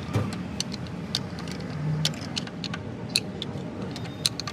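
Irregular sharp metallic clicks and clinks, two or three a second, of steel hand tools working at a truck's wheel hub nut, over a steady low background rumble.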